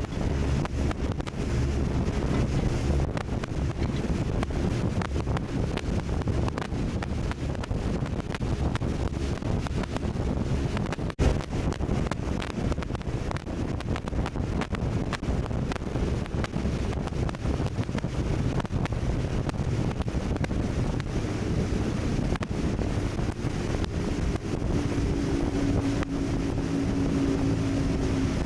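Speedboat under way: its engine drones under heavy wind buffeting on the microphone and the rush of water against the hull. About three-quarters of the way through, a steadier engine tone comes up.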